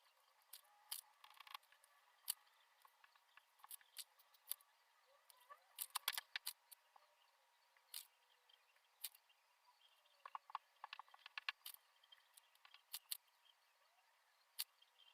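Faint, irregular small clicks and taps of objects being handled on a desk, some in quick clusters, over near silence.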